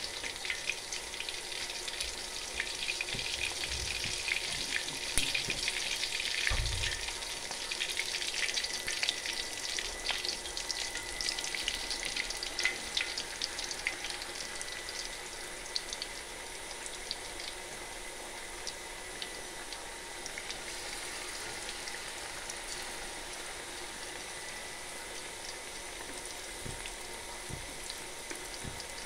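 Battered purple sweet potato pieces deep-frying in hot oil in a wok: a dense sizzle full of small crackles and pops, busiest in the first half and settling into a quieter, steadier sizzle. A couple of dull knocks come a few seconds in.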